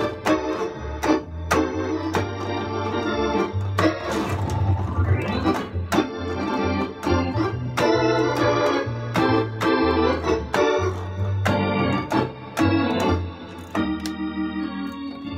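Two-manual electronic organ played in a Hammond-style tone: busy improvised chords and runs with sharp note attacks over a stepping bass line, settling onto a held chord near the end.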